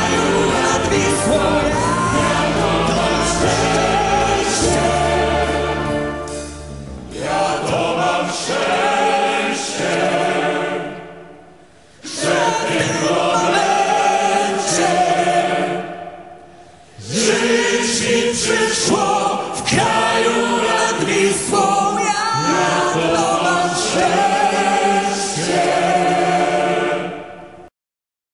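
Polish patriotic song: voices singing over accompaniment, the music dipping briefly about seven, eleven and sixteen seconds in and cutting off abruptly near the end.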